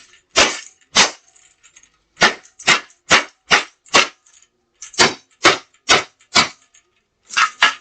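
Repeated hard blows smashing a plastic toy vacuum cleaner: about thirteen sharp cracks in quick runs of two, five, four and two, roughly two a second.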